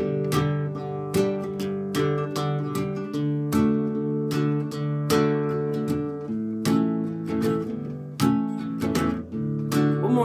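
Cutaway acoustic guitar strummed in a steady rhythm, open chords in the key of D, changing chord about six and again about eight seconds in.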